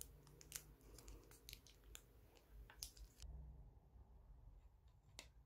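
Near silence, with faint scattered clicks and crinkles of a plastic ketchup sachet being squeezed over a paper food wrapper. After about three seconds these stop, leaving quieter room tone and one faint tick near the end.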